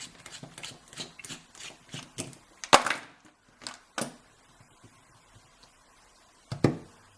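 Light rapid clicks, about three a second, then three sharp clacks, the first the loudest. This is a Medeco biaxial lock cylinder and the tools used on it being handled as the lock is taken apart.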